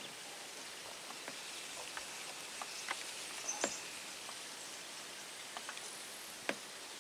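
Quiet waterside ambience: a faint steady hiss with scattered soft ticks and a brief high chirp about three and a half seconds in.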